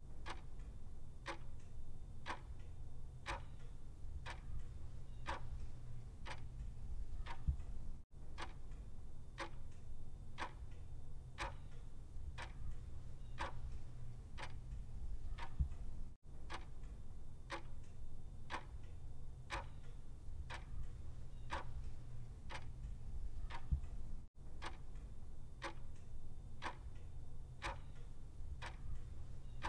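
Clock ticking steadily, about two ticks a second, over a low steady hum. The sound cuts out for an instant three times, about every eight seconds.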